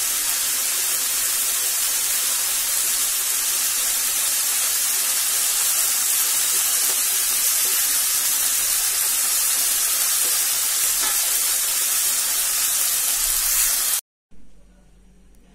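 Hot oil sizzling steadily in a steel wok as fried brinjal pieces and a tempering of panch phoron and dried red chilli fry. The sizzle cuts off suddenly near the end.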